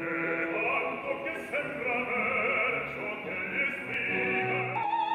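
Operatic singing with orchestral accompaniment: a male voice singing in full operatic style over held orchestral notes. The music shifts to new sustained notes near the end.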